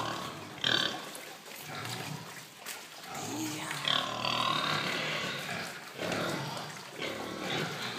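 Pigs grunting and squealing as they feed on dead chickens, with short high squeals near the start and a longer run of squealing in the middle.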